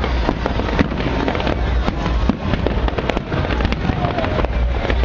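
A fireworks display going off in quick succession: a dense, continuous run of sharp bangs and crackles over deep booms.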